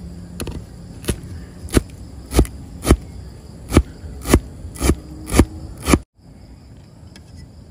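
A cleaver chopping soup celery (Chinese celery) on a chopping board: about nine sharp knocks, roughly one every half second, stopping about six seconds in.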